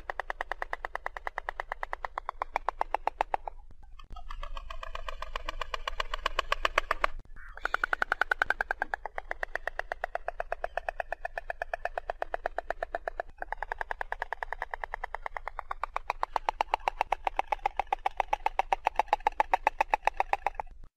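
White stork bill-clattering: rapid runs of hollow, rattling clacks that go on for several seconds at a time, breaking off briefly about four and seven seconds in.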